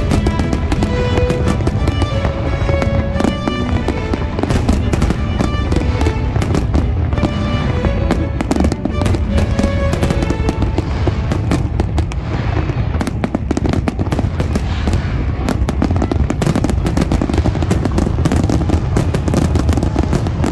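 Fireworks display with aerial shells bursting in a dense, continuous barrage of rapid bangs. Music with held notes plays underneath for the first half and then mostly drops away.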